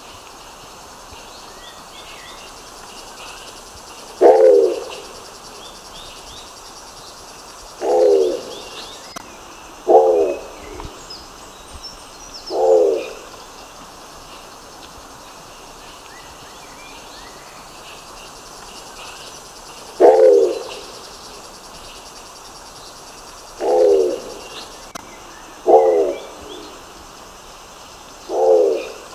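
Nicobar pigeon calling: eight short, low calls, spaced unevenly a few seconds apart, over a steady background hiss with faint high chirps.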